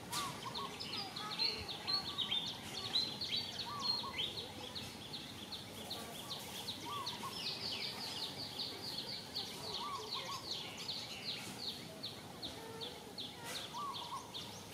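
Outdoor wildlife ambience: rapid high-pitched chirping, several short falling chirps a second without a break, with fainter, lower chirps every second or two.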